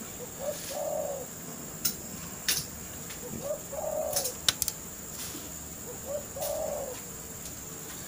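A dove cooing three times, each call a short note followed by a longer low coo, about three seconds apart. A few light clicks come between the calls.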